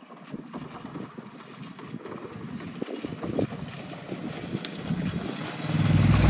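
Triumph Scrambler 900 motorcycle on a short dirt descent: wind buffets the microphone over scattered ticks and crackles, and the bike's parallel-twin engine stays low at first. The engine rumble swells sharply near the end.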